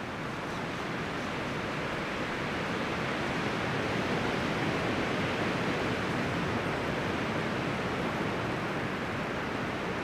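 Steady rushing noise with no calls or distinct events, growing a little louder a few seconds in and then holding.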